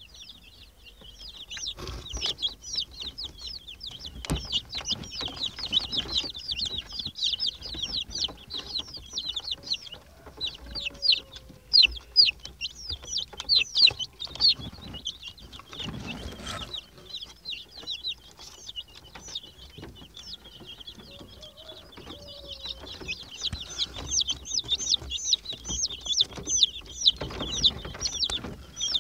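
A brood of 15-day-old Rhode Island Red chicks peeping: many short, high peeps overlapping in a constant chorus, thinning out in the middle and picking up again near the end. Scattered soft knocks are heard under the peeping.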